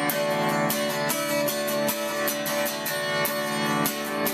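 Acoustic guitar strummed in a steady rhythm, its chords ringing on between strokes, picked up by a Flip Ultra HD camcorder's built-in microphone.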